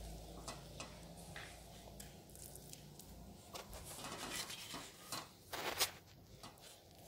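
Green plastic spatula scraping and scooping sticky rice-and-tapioca dough out of a metal wok: soft squishes and scattered light knocks against the pan, with a short cluster of louder knocks near the end.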